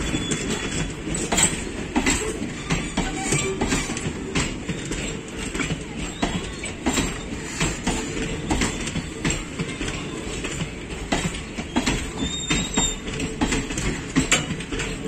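Passenger coaches of an express train rolling past as it pulls out, wheels clacking irregularly over rail joints over a continuous rumble.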